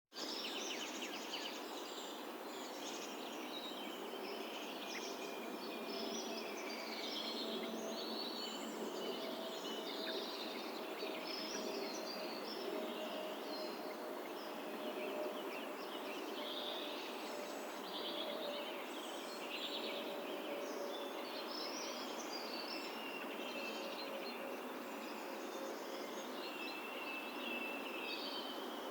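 Many birds chirping and singing at once, short overlapping calls all through, over a steady background hiss of countryside ambience.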